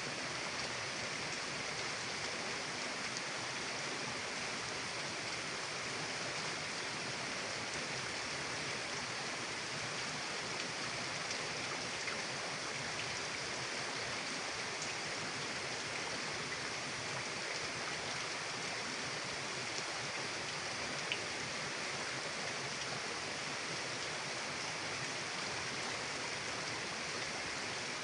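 Mountain river rushing steadily over rocks, a constant even hiss of running water.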